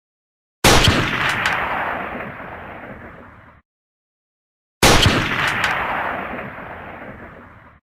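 Two shots from an M24 bolt-action sniper rifle, about four seconds apart, each a sharp crack followed by a long rumbling echo that fades over about three seconds and then stops abruptly. A couple of quick sharp ticks sound within a second after each shot.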